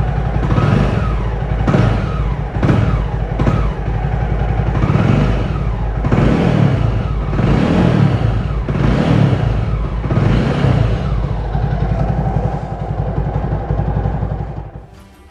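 Jawa 42 motorcycle's single-cylinder engine running on a freshly fitted battery, being revved again and again so the pitch rises and falls about once a second. It dies away near the end.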